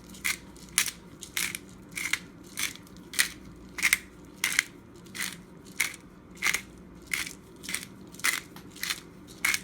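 Black pepper being ground from a hand pepper grinder: an even run of short crunching strokes, about three every two seconds, as the grinder is twisted back and forth.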